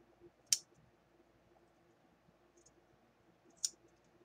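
Large fabric shears snipping lace trim: two crisp snips, about three seconds apart.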